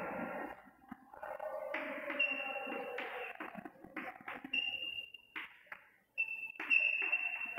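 Chalk writing on a blackboard: a run of short, irregular scratching strokes and taps, several of them with a thin high squeak.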